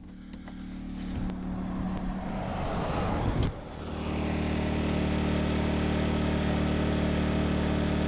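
RV rooftop air conditioner switched from fan to low cool. Its running noise swells, dips briefly about three and a half seconds in, then settles into a steady hum.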